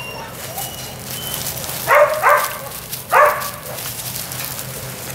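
Weimaraner puppies yipping: three short, high yips, two close together about two seconds in and a third about a second later, over light scuffling in wood-chip mulch.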